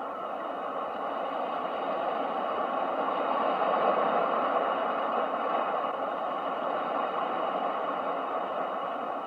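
Ocean surf as a steady wash of noise, one wave swelling up to its loudest mid-way and then easing back.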